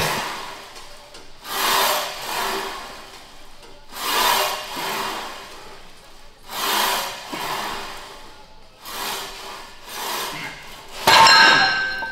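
A lifter breathing hard through the reps of a weight-training set, with a forceful, hissy exhale about every two and a half seconds. The loudest breath comes about eleven seconds in.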